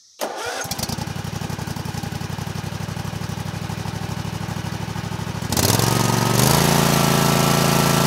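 Kawasaki FH661V V-twin engine on a Cub Cadet RZT 50 zero-turn mower starting almost at once and idling with a steady pulse, then the throttle is ramped up about five and a half seconds in and it rises in pitch and runs steady and louder at higher speed. It is running normally on its new spark plugs, air filter and fuel filter.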